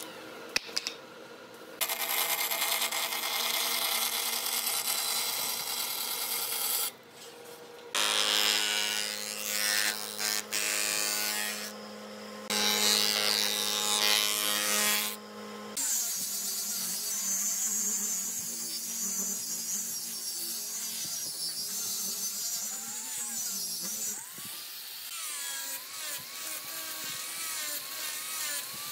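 Woodworking tools on wood in several short cuts: a power tool's motor running at a steady pitch for the first half, then irregular rubbing and scraping on wood.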